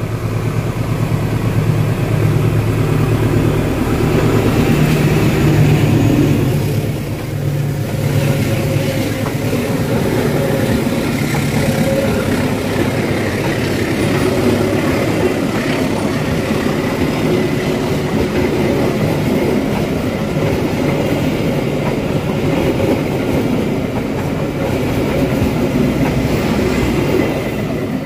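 A KAI diesel locomotive and its passenger train pass close by at speed in heavy rain, with no sign of wheel slip. The locomotive's engine drone is loudest over the first seven seconds or so. After that the coaches roll past with a steady wheel rumble under the hiss of rain.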